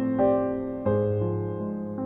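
Background keyboard music in a piano sound: slow notes and chords, each struck and fading, a new one every half second or so.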